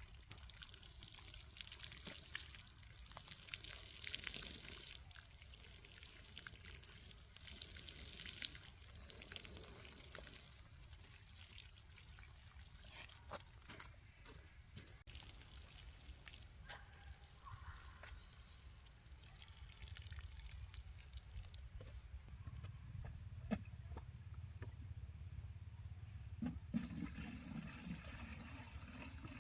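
Faint water trickling and pouring, with scattered small clicks and knocks.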